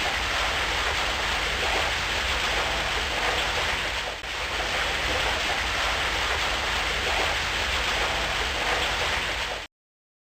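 Rain falling in a steady, dense hiss, with a brief dip in level about four seconds in. It cuts off abruptly near the end.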